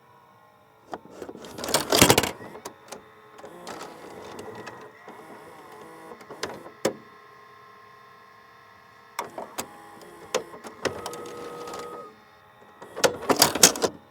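A VHS cassette going into and out of a VCR: loud plastic clatters of the cassette at the slot about two seconds in and again near the end, and between them two runs of the deck's loading and eject mechanism whirring with sharp clicks.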